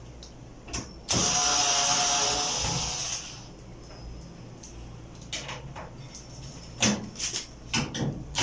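Cordless electric screwdriver running on a screw in a clothes dryer's drum support bracket for about two seconds, then a series of short knocks and clicks of handling the tool, screws and metal bracket.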